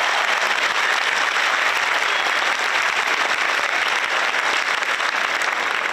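Large audience applauding steadily in a hall, a dense even clapping for award winners.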